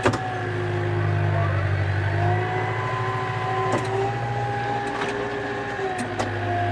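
Tractor engine running steadily, with a low drone and a steady whine over it. A few sharp clicks sound during it.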